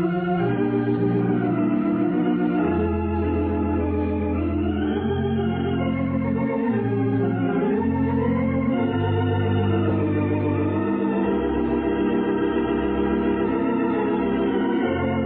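Organ music playing sustained chords under a slow, wavering melody, as a musical bridge into the story. It is heard through the narrow, dull sound of a 1938 radio aircheck recording.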